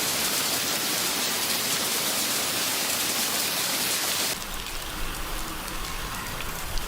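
Heavy rain hissing steadily, then about four seconds in an abrupt switch to another recording: a lighter rain hiss with a low rumble and faint scattered ticks.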